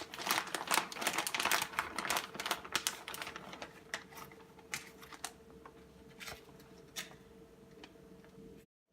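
Kitchen utensils and a measuring cup clicking and tapping rapidly while two-thirds of a cup of an ingredient is measured out. The clicks thin out after about four seconds over a faint steady hum, and the sound cuts off abruptly near the end.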